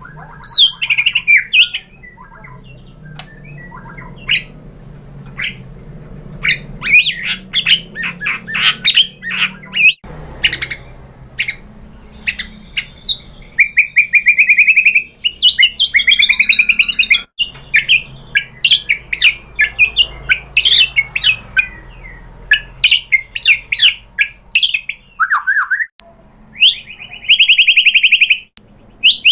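White-rumped shama (murai batu) singing a long, varied song of quick whistles, chattering notes and trills. A rapid buzzy rattle comes about halfway through and again near the end.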